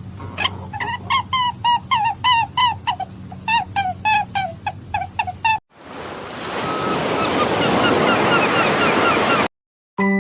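A bird calling over and over in short, downward-bending calls, about two or three a second, over a low steady hum. About halfway through the calls cut off and a rushing noise swells up with faint chirps over it, then stops suddenly near the end.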